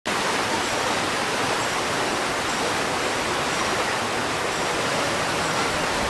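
Whitewater rapids of a theme-park raft ride rushing steadily over rocks.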